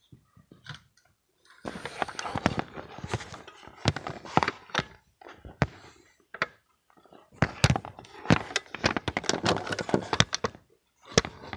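Rustling and knocking handling noise close to the microphone, in two long stretches with many sharp knocks, then one more knock near the end.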